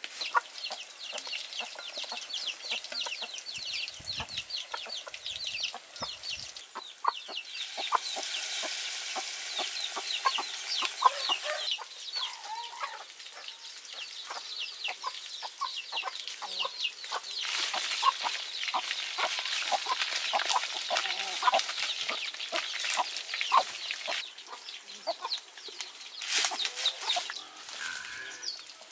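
Battered fish deep-frying in a wok of hot oil: a dense, continuous crackle and sizzle of popping bubbles that swells louder twice.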